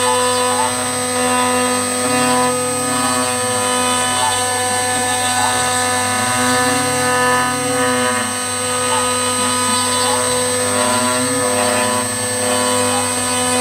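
Small CNC engraver's spindle and end mill cutting a circular recess in a metal plate: a steady spindle whine with several fixed high tones over the cutting noise, and a lower hum that rises and falls in pitch about every four and a half seconds as the tool sweeps round the circle. The cut is climb milling, which the owner marks as a goof.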